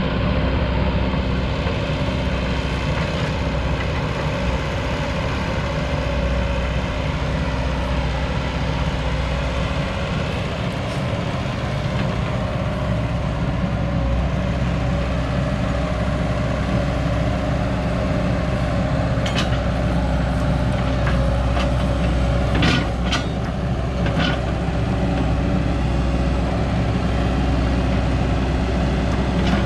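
Cat E120B excavator's diesel engine running steadily, with a few short sharp clicks past the middle.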